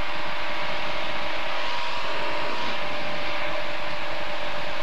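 Aquila light aircraft's Rotax four-cylinder engine and propeller running steadily at climb power just after takeoff, heard in the cockpit as an even drone with a hiss.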